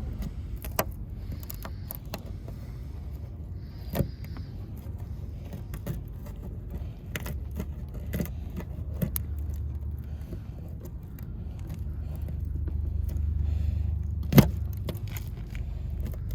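Plastic pry tool working a glued-on emblem off the car's body: scattered light clicks and scrapes, with one sharper click near the end. A low rumble underneath grows louder in the second half.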